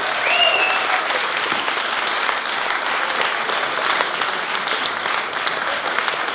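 A roomful of guests applauding steadily, many hands clapping at once. Near the start a brief high sound rises above the clapping.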